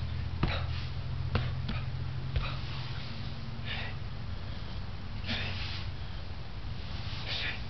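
A person's short, sharp breaths through the nose while exercising, several hissing bursts spread through. A few quick clicks in the first couple of seconds, over a steady low hum.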